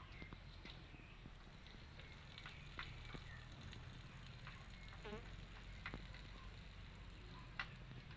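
Faint chicken-yard sounds: scattered soft ticks and short high chirps over a steady low hum, with one brief wavering call about five seconds in.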